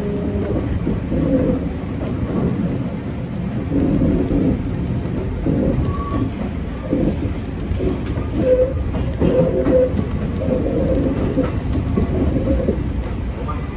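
Kintetsu electric commuter train running on the Shigi Line, heard from inside the front car: a steady, uneven rumble of wheels on rails and running gear.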